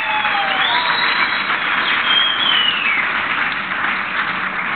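A roomful of people applauding, with a few high whoops over the clapping in the first couple of seconds.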